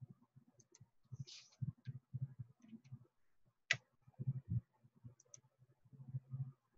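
Faint computer-mouse clicking and soft irregular knocks on the desk, with one sharper click a little past the middle.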